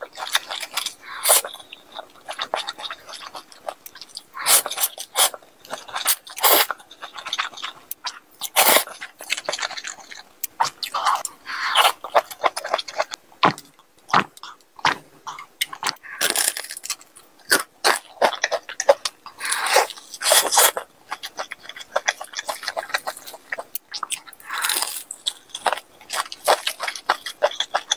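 Close-miked eating sounds: noodles slurped and chewed, a drink sipped through a straw, and bites into crispy sauced Korean fried chicken, with irregular wet chewing and crunching.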